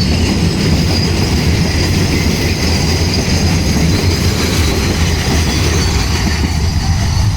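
Freight train of oil tanker wagons rolling past: a continuous rumble of steel wheels on the rails, with a steady high-pitched wheel squeal over it.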